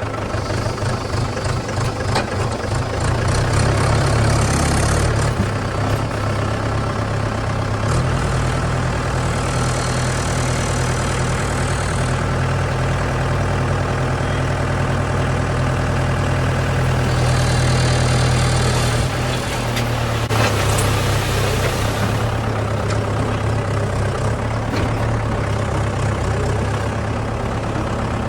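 JCB 3DX backhoe loader's diesel engine running steadily under work, with a hiss that comes and goes a few times.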